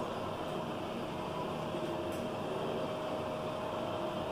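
Glass passenger elevator car travelling down: a steady whir with a thin steady hum-tone running through it, and a faint tick about two seconds in.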